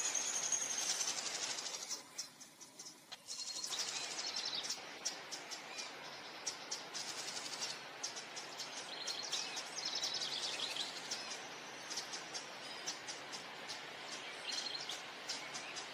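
Gloved hands rubbing a crumbly flour, sesame and butter mixture: a gritty rustle that stops briefly about two seconds in, then resumes. Rapid high chirping goes on behind it.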